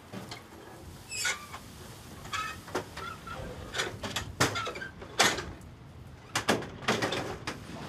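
Irregular knocks and metal clanks in a livestock trailer as a pig is loaded, its gates and partitions banging, with a few short high squeaks in the first half.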